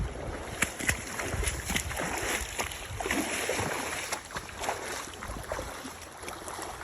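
Stream water splashing and sloshing around someone wading, with irregular sharp knocks and clicks.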